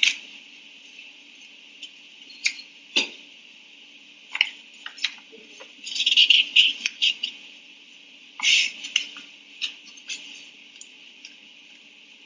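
Intermittent rustling and clicking handling noises picked up by a courtroom microphone over a steady low hum, with the loudest bursts about six and eight and a half seconds in.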